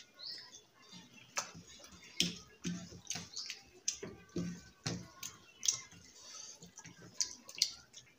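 Two people eating rice and curry by hand: irregular wet chewing and lip-smacking clicks, a few a second, with the soft squish of fingers mixing rice on the plates.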